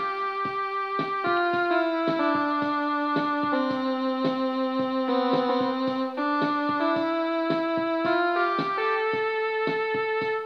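Electronic home keyboard playing a slow melody of held notes over a steady accompaniment beat; one long low note is held for about two seconds near the middle.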